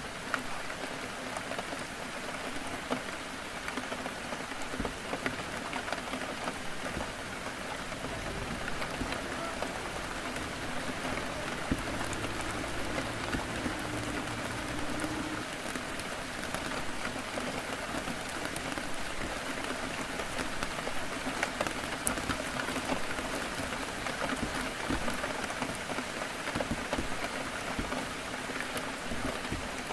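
Heavy rain falling on a window: a steady hiss dotted with many small drop ticks. A faint low drone comes and goes in the middle.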